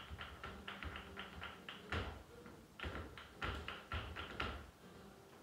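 Flamenco footwork (zapateado) and hand clapping (palmas): quick, even strikes about five a second, then from about two seconds in a few louder, more widely spaced accents.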